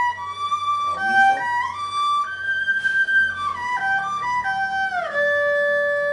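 Erhu bowed through a broken-chord sequence exercise in G: the notes step up to a high note held for about a second, then step back down with short slides to a long low note near the end.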